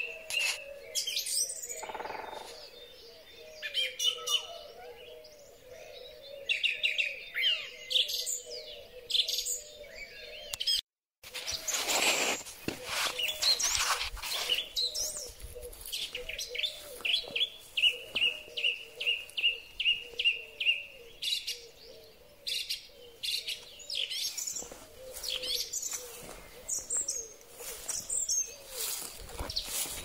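Song thrush singing: short, varied, whistled phrases, some notes repeated in quick runs of about three a second. There is a split-second gap in the audio about eleven seconds in.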